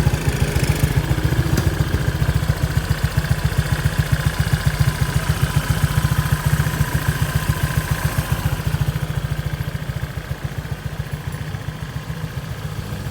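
Honda PCX150's single-cylinder four-stroke engine idling through an aftermarket JVT Power Pipe exhaust: a steady, even exhaust pulse that eases a little quieter about two thirds of the way through.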